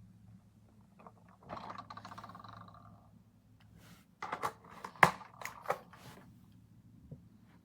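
Plastic parts of a Playmobil fire engine toy being handled: a quick rattle for about a second and a half, then a run of sharp plastic clicks, the loudest about five seconds in.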